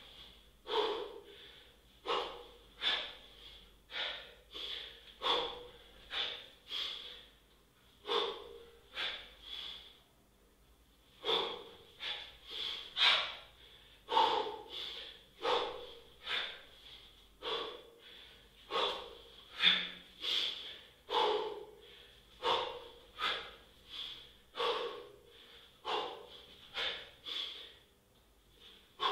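A man's hard rhythmic breathing while doing kettlebell snatches: short forceful breaths in time with the reps, about one to two a second, pausing briefly about ten seconds in.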